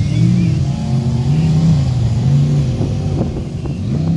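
Off-road race rig's engine revving up and down in four surges, each pitch rising then falling. A few sharp clicks come in the second half.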